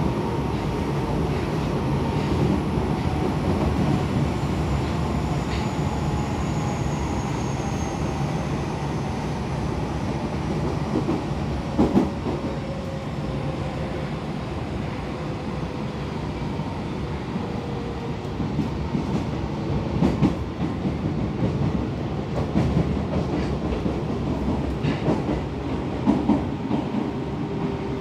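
Refurbished Osaka Metro 22 series subway car running, heard from inside the car: a steady rumble of wheels and motors under a faint whine that slowly falls in pitch. A few sharp clacks of the wheels over rail joints come about twelve seconds in and again near the end.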